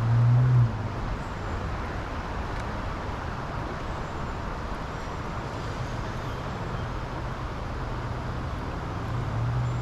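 Steady road traffic noise, with a low vehicle hum that swells in the first moment and again near the end as vehicles pass.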